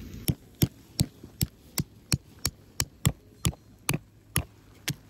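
A hammer driving a tent peg into the ground: a steady run of about a dozen sharp blows, two to three a second.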